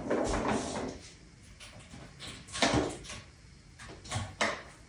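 A few soft knocks and thumps, spaced out, with quiet room noise between them.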